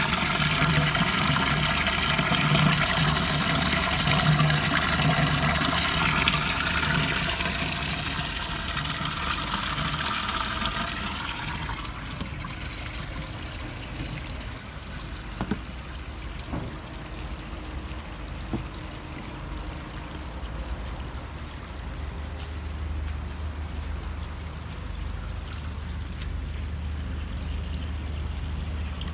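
Pond water from the return pipe pouring and splashing into a DIY koi pond filter bin lined with filter floss. It is loud for the first eleven seconds or so, then drops to a quieter, duller splashing.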